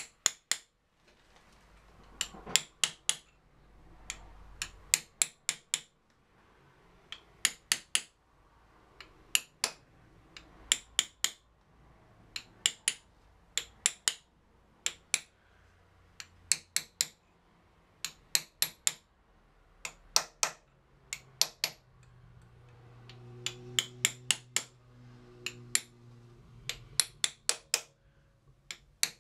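Light hammer taps on a metal drift, driving a new output oil seal into a BMW paralever final drive (bevel box). The taps come in short quick groups of two to five, with brief pauses between.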